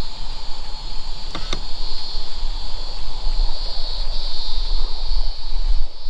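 Steady high chirring of insects, with a low, steady rumble underneath and a single sharp click about a second and a half in.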